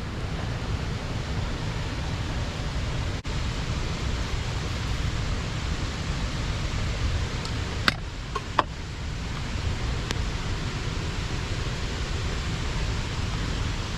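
Steady rush of river water pouring over a small weir. A few sharp clicks about eight seconds in.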